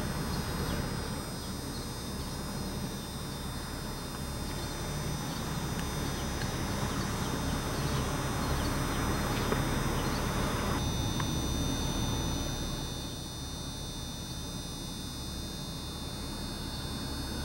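Steady low rumble of street traffic heard from inside a car, easing slightly about thirteen seconds in.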